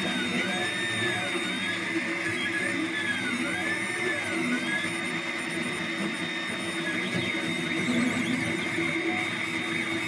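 Monoprice Select Mini 3D printer running a print: its stepper motors whine in repeated glides that rise and fall as the print head and bed shuttle back and forth, over a steady high tone.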